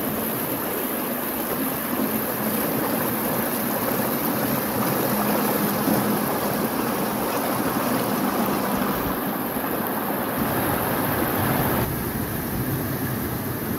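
Water rushing across a concrete crossing and pouring through steel grate drains, a steady rushing noise that turns quieter near the end.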